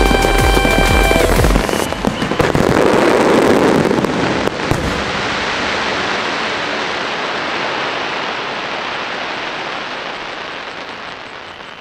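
Aerial fireworks bursting with a quick string of sharp cracks, over the last second and a half of music with heavy bass that then stops. The cracks give way to a dense hiss that slowly fades away.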